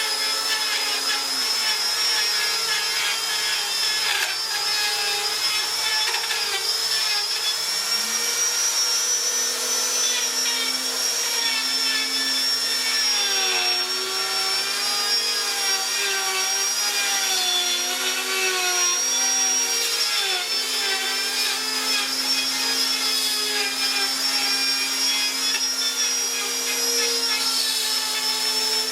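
Electric power tool motor running steadily on wood. Its pitch drops about two seconds in as it takes load and climbs back about eight seconds in.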